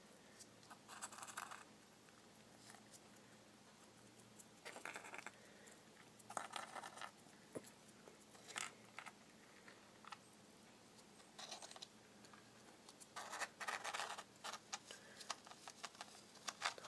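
Faint, short bursts of scratching and clicking, about seven times, from a hamster's claws scrabbling on a tiled floor.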